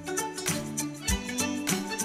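Background music: plucked-string notes over a steady beat.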